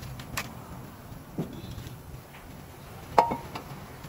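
A few light metallic clinks of tools and brake parts being handled, the loudest about three seconds in with a short ring.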